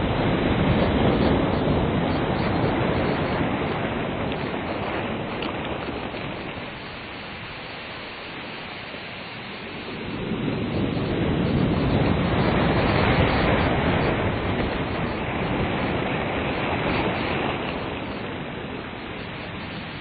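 Ocean surf washing onto a beach, rising and falling in slow swells. One wave fades into a lull, a second surge builds about halfway through, and it ebbs again near the end.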